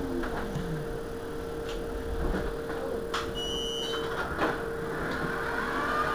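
Irizar i2e electric bus standing at a stop with a steady electric whine. About three seconds in there is a click, then a short high beep, then a knock about a second later, as of the bus's doors being worked.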